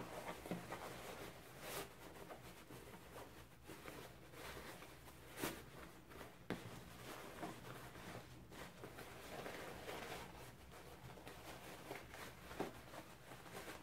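Faint rustling of fabric as a sewn tote bag is pulled right side out through the gap in its lining, with a few short, louder rustles.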